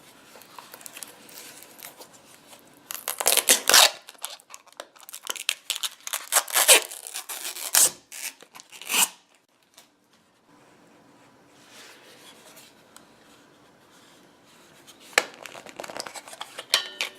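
Packaging being handled: crinkling and tearing in uneven bursts, with a brief quiet pause partway through.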